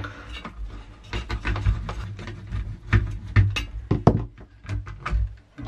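Irregular clicks, taps and low knocks from a metal CPU heatsink being worked loose by hand and handled on a server motherboard.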